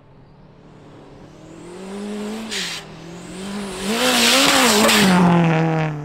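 Turbocharged four-cylinder rally car on a snow track, coming closer and passing, its engine revving up and down as the throttle is worked through the slide. A short hiss comes as the driver lifts, about halfway. A rush of tyre and snow noise is loudest as it goes by near the end.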